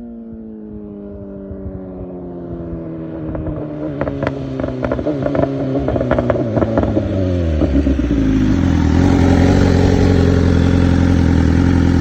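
BMW S1000RR inline-four engine coming off the revs, its note falling steadily and growing louder, with sharp exhaust pops and crackles on the overrun in the middle. From about eight seconds it settles into a steady, loud low running note.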